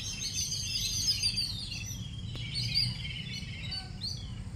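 Many small birds chirping at once, quick overlapping high chirps that thin out after about three seconds, over a low steady rumble.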